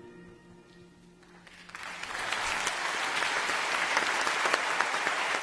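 An orchestra's final chord rings away into quiet, with one low note lingering. About a second and a half in, audience applause starts, builds over the next second and then holds steady.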